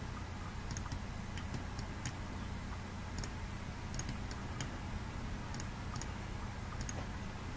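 Computer mouse buttons clicking, faint single clicks at an irregular pace of about one or two a second, as edges are selected one by one, over a low steady hum.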